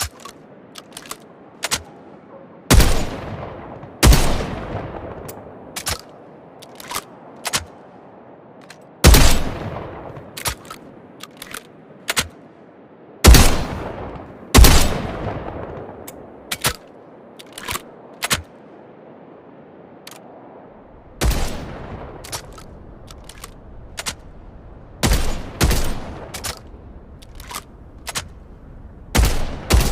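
Break-action shotgun firing about nine loud shots, several in close pairs about a second apart, each ringing out and fading over a second or two. Between the shots come many small sharp metallic clicks from the gun's action.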